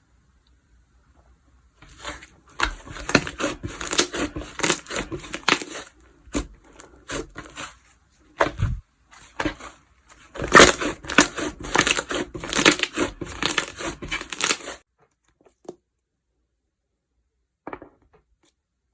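Slime being squeezed and pressed by hand, making dense crackling and popping in two bouts, with a few single pops between them.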